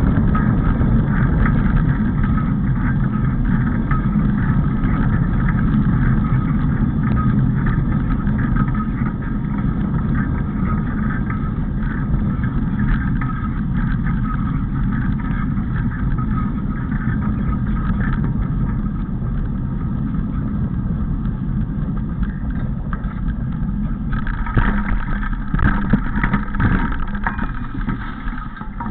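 Wind rumbling on the microphone and tyres rolling over a gravel path while cycling. About three-quarters of the way through it turns rougher, with irregular knocks and rattles as the ride leaves the path for bumpy ground.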